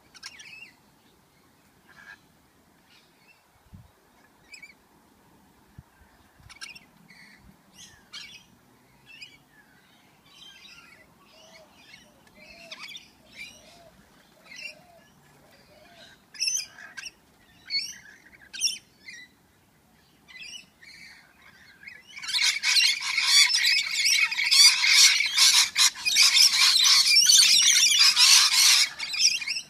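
Rainbow lorikeets calling with scattered short screeches and chatters, then, from about three-quarters of the way through, a loud continuous burst of harsh screeching as the birds squabble at the birdbath.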